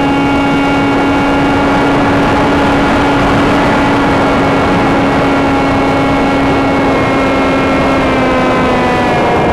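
Electric motor and propeller of a Sky Surfer RC glider whining at a steady pitch over loud wind rush, the pitch dropping near the end.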